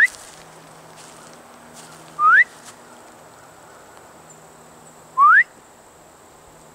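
A person whistling three short upward-sliding whistles, each under half a second and spaced about two to three seconds apart.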